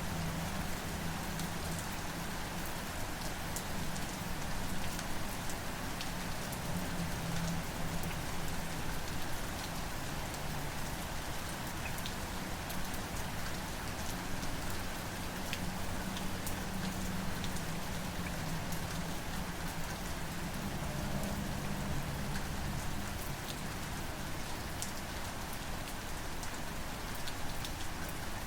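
Steady rain falling, with scattered sharp drop ticks over an even hiss and a low hum underneath.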